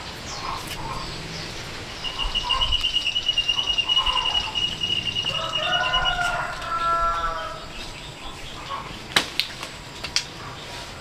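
Birds calling: a fast, high trill that lasts about four seconds, overlapped near its end by a lower call of several tones. A couple of sharp clicks follow near the end.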